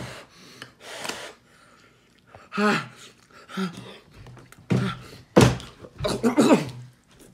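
A man huffing breaths through a mouthful of piping-hot food to cool it. From about two and a half seconds in come several sharp gasps and strained vocal noises as he inhales a piece and starts to choke.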